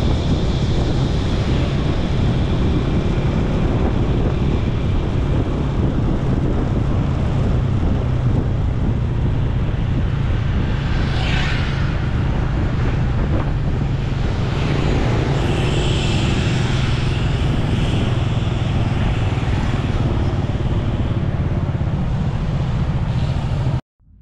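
Wind buffeting the microphone and road noise from a motorcycle on the move, a steady loud rumble that cuts off suddenly near the end.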